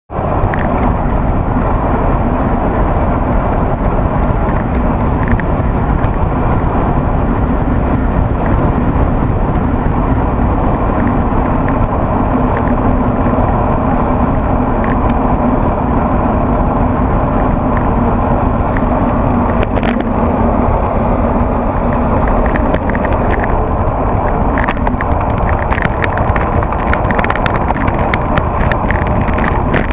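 Wind rushing over a bicycle-mounted action camera's microphone, with tyre noise on the road, as a road bike descends at speed. Over the last few seconds, frequent sharp clicks and rattles are added.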